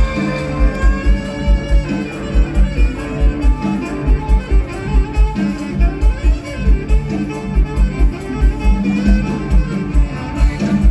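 Mor lam band playing an instrumental passage, with melodic lines over a steady heavy kick-drum beat.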